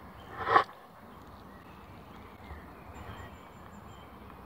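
Short intro whoosh that swells and cuts off abruptly about half a second in, followed by faint steady background hiss with a few faint thin high tones.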